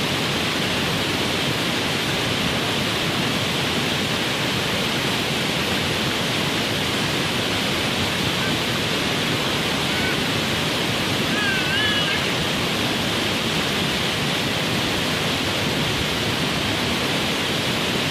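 Waterfall rushing in a steady, loud, unbroken roar of falling water.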